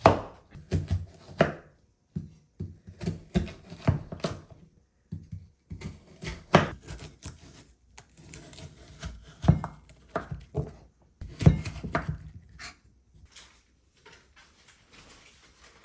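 Irregular knocks and clatter of kitchen utensils and dishes, a sharp stroke every second or few with quieter gaps between.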